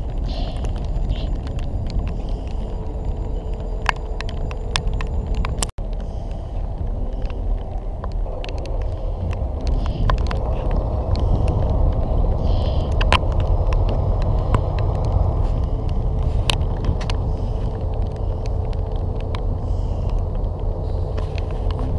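Diesel engine of a Colas Rail freight locomotive running while it stands, a steady low rumble that grows a little louder about ten seconds in. Scattered sharp ticks, with raindrops on the camera housing a likely cause.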